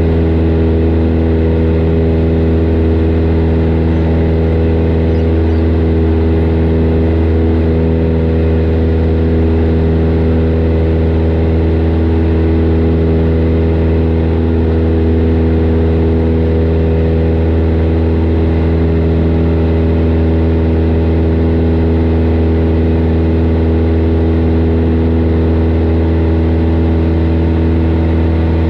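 Single-engine light airplane's piston engine and propeller droning steadily in flight, heard from inside the cabin. The pitch and level hold even throughout: the engine is at constant power.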